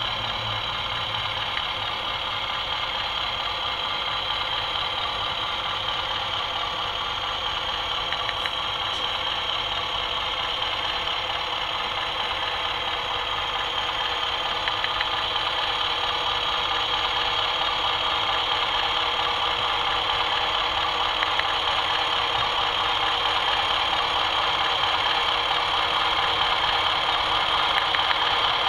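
Model Class 20 diesel locomotive with a sound decoder and no stay-alive capacitor, its speaker playing a steady diesel engine sound as it creeps slowly along the track, getting a little louder near the end. The engine sound runs without a break, a sign that the newly wired track has no dead patches.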